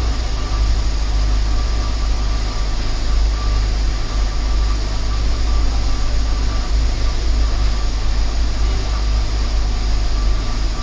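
Car being driven after a CVT gearbox repair: a steady, heavy low rumble of engine and road noise, with a faint steady whine above it.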